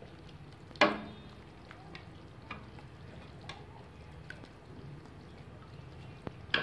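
Steel ladle scooping chicken curry out of a steel cooking pot into a plate: one sharp metallic clink a little under a second in, then a few light taps and soft sloshing of the gravy.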